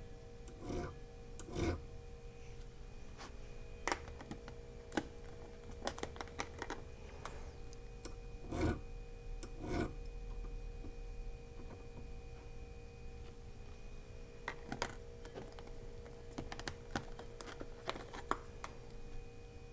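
Rockwell-rated hardness test files scratched against the steel needle bar of a Juki HZL-27Z sewing machine: scattered light scrapes and clicks of the tool tips on metal as each file is tried. A faint steady hum runs underneath.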